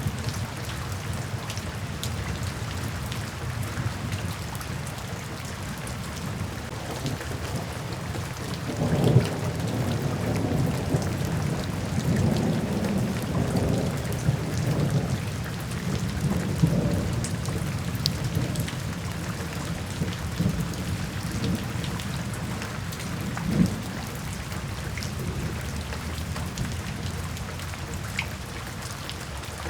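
Steady rain falling, with rolling thunder that begins with a crack about a third of the way in, rumbles on for several seconds, and gives one more short clap near the end.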